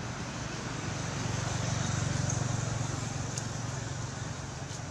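Low rumble of a motor vehicle passing in the distance, swelling about a second and a half in and fading again over steady outdoor background noise.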